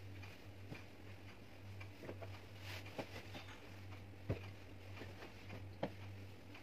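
Soft rustling and light thumps of pillows and bedding being handled and laid on a bed, with a sharper knock about four seconds in, over a steady low hum.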